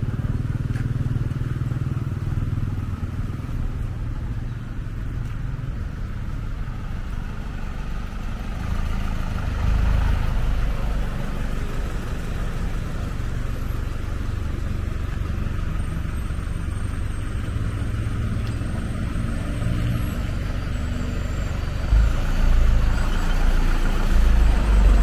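Street traffic: motor vehicles passing on a busy road, a continuous low rumble. It grows louder as vehicles go by about ten seconds in and again near the end.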